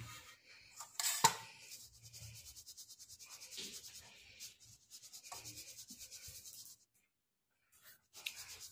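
Crumbly flour dough being worked in a wire-mesh sieve over a steel bowl: a quick, even run of rubbing and scratching of the crumbs against the mesh, with a sharp clink just over a second in. It stops near the end.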